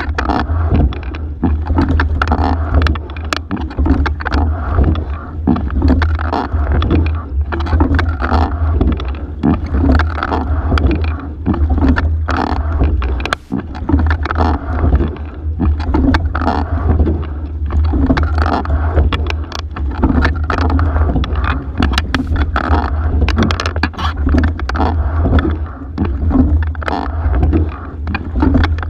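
Single scull being rowed: water rushing along the hull and the oar blades, with frequent sharp knocks from the oarlocks and rigging, over a steady low rumble on the camera microphone.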